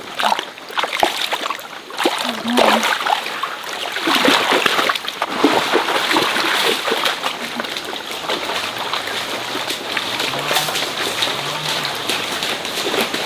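Water splashing and sloshing in a stream: irregular splashes over a steady rush of moving water.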